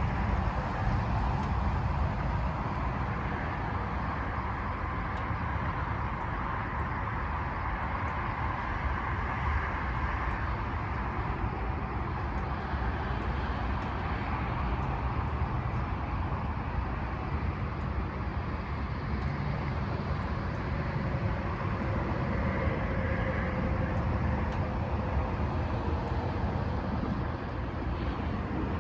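Steady low noise like a vehicle running or road traffic, even throughout with no separate claps or strikes.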